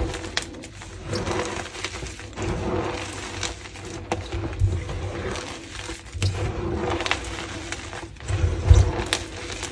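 Hands crushing and squeezing a pile of crumbled gym chalk coated in pink pigment powder: irregular crunching and crackling as chalk lumps break and grind, with soft dull thumps as the palms press into the pile.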